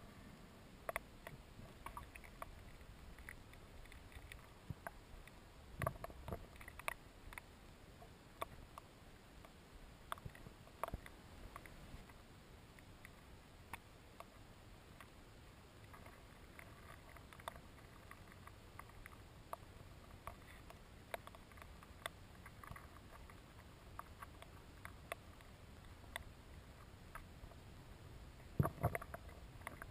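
Underwater ambience: a faint low water rumble with scattered sharp clicks and knocks, a louder cluster of knocks near the end.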